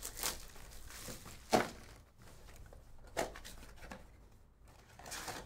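Cardboard trading-card box being opened and handled by hand: a few short rustles and scrapes of card stock and wrapper, the loudest about a second and a half in.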